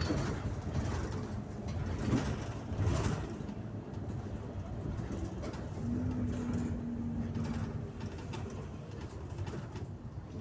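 Interior rumble of an Irisbus Citelis Line city bus on the move, with a few knocks about two to three seconds in and a short steady hum about six seconds in.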